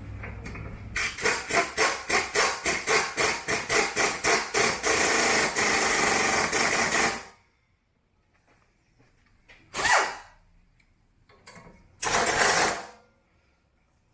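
Small impact wrench driving a suspension bolt: a run of rapid hammering pulses that merge into a steady run for about six seconds, followed by two short bursts.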